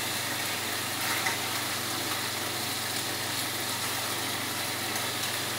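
Marinated chicken pieces sizzling in hot oil in a pan, a steady frying hiss over a low steady hum, with a few faint clinks of a spoon as pieces are lifted out.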